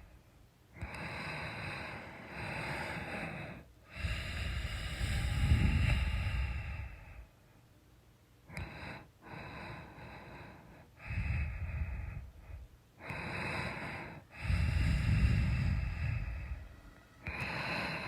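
A person snoring in sleep: a string of noisy breaths in and out, each one to three seconds long, with short pauses between. The loudest breaths carry a low snoring rumble.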